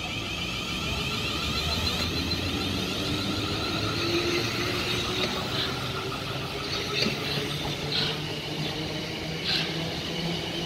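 A Class 450 Desiro electric multiple unit runs along the platform, with a steady whine and a rumble of wheels on the rails. A few short sharp clicks come in the second half.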